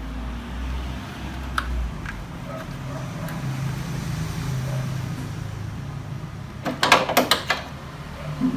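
Hands refitting a rubber hose and its clamp onto a plastic engine valve cover: a few light clicks, then a quick run of sharp metallic clinks and clatters about seven seconds in, over a steady low hum.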